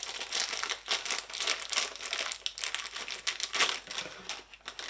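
Plastic snack bag crinkling as it is handled and torn open, a dense crackly rustle that peaks a little over three and a half seconds in.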